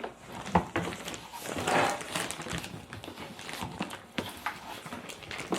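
Handling noise from fitting parts of an animatronic figure together: scattered knocks and clicks, with a brief rustle about two seconds in.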